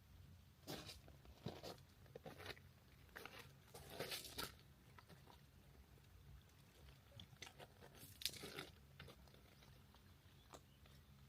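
Faint, irregular crunches and scrapes in three short clusters, over a steady low hum.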